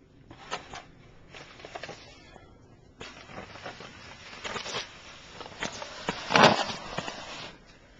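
Snow shovel blade pushed along the driveway, scraping and shoving snow. It starts about three seconds in and is loudest a little after six seconds.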